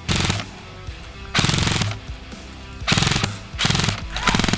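Airsoft electric gun firing five short full-auto bursts, each a rapid string of shots lasting about half a second.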